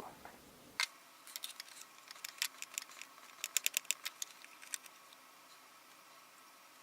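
Light clicks and taps of plastic Play-Doh tools and molds being handled while shaping a Play-Doh piece, coming irregularly with a quick run of clicks about three and a half seconds in, then stopping about five seconds in.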